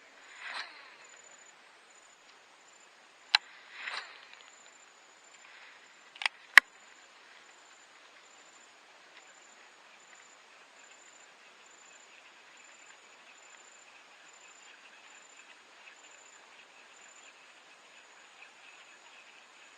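A few sharp clicks, each with a short swish or splash just after, in the first seven seconds; the loudest click comes about six and a half seconds in. Behind them, and alone for the rest, insects buzz faintly and steadily.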